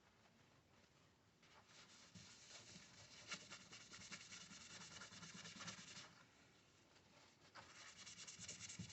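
Wiping the contact surface of a server CPU heatsink clean: faint rubbing strokes, pausing for about a second and a half past the middle.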